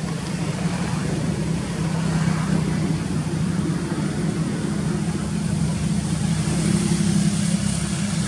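Steady low engine hum, like a motor vehicle idling, running unchanged throughout.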